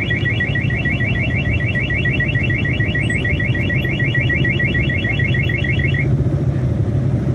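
Suzuki alarm system siren on a carburettor Suzuki Satria motorcycle, set off from the remote by pressing silent and unlock together. It sounds a fast, even string of high chirps, about eight a second, and cuts off by itself about six seconds in. The bike's engine runs steadily underneath.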